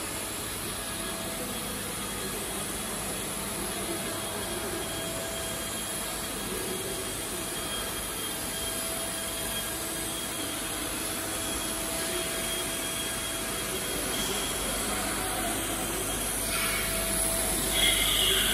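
Five-axis wood CNC router with its spindle running at 20,000 rpm, a steady whine over a hiss of machine noise as the axes move through a program. It gets louder and brighter near the end.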